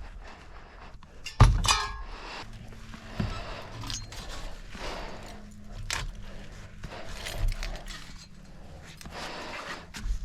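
A sharp metallic clank with a brief ringing about a second and a half in, followed by scattered knocks, clicks and handling noises over a faint steady low hum.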